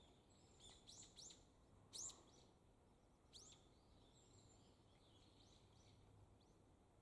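Faint high bird calls: a handful of short, sharp notes that sweep downward in pitch, in a quick cluster within the first second or so, the loudest about two seconds in and one more about three and a half seconds in.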